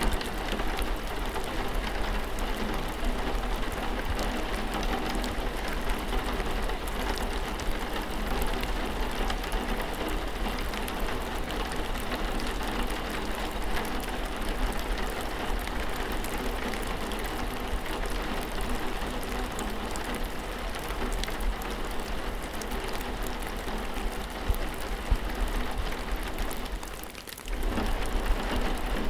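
Steady rain falling, an even hiss dotted with the patter of individual drops. It dips away briefly near the end and comes straight back.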